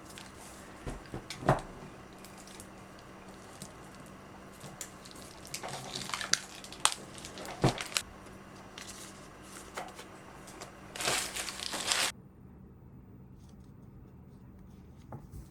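Light handling sounds: a scatter of small knocks and clicks, the loudest about a second and a half in and a cluster a few seconds later, then a brief rustle of something being crumpled or torn near the end.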